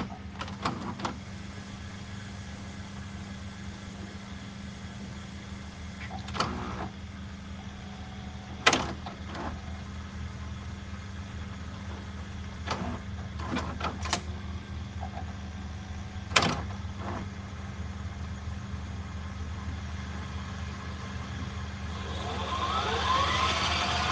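A steady low droning hum with scattered sharp clicks and crackles, the loudest about a third and two-thirds of the way through. Near the end several rising tones swell in over the hum.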